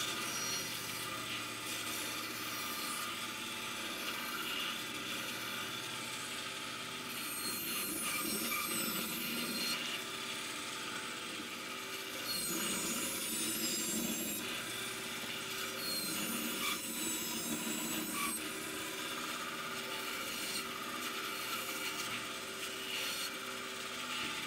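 Bandsaw running while its blade skims and cuts a wooden shoe last, shaping the block in light passes. Three stretches of heavier cutting in the middle bring in a high, wavering whine.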